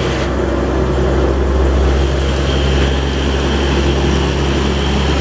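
Hino box truck's diesel engine running steadily with a deep hum as it drives along, with tyre noise on the wet road.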